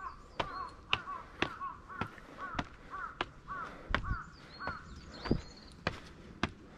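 Footsteps at a steady walking pace, about two a second, while a bird gives short arched calls over and over at about the same rate.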